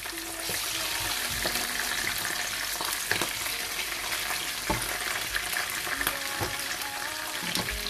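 Chicken pieces sizzling in a stone-coated frying pan while being stirred and turned with a wooden spoon and a wooden spatula, with frequent small knocks and scrapes of the wood against the pan. The sizzling picks up about half a second in.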